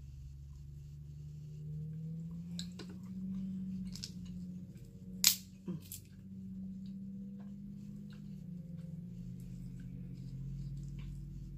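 Dungeness crab shell being cracked and picked apart by hand: a scatter of sharp cracks and clicks, the loudest about five seconds in. A steady low hum runs underneath.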